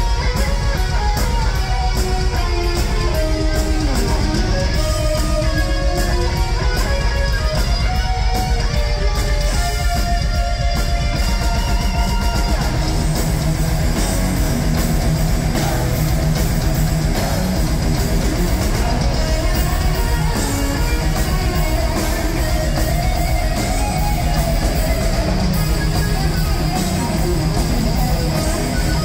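Live heavy metal band playing loud through a concert PA: distorted electric guitar lead lines over drums and bass, giving way to heavier chugging rhythm chords about halfway through.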